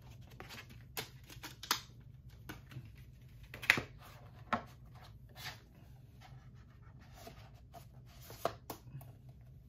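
Cardboard, paper and plastic packaging of a Blu-ray limited edition being handled: scattered clicks, taps and rustles, the loudest a sharp knock a little under four seconds in.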